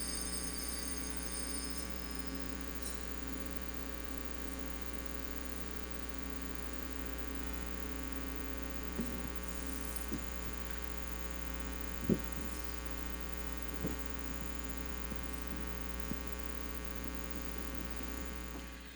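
Steady low electrical hum from the broadcast sound system during a silent pause, with no speech or music. There is faint high ringing in the first couple of seconds and a few faint clicks later on.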